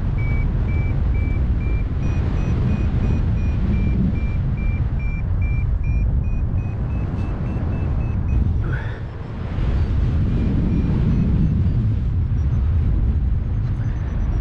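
Paragliding variometer beeping about twice a second, its pitch slowly rising: the climb tone while the glider is going up in lift. Heavy wind noise on the microphone runs under it, briefly dropping about nine seconds in.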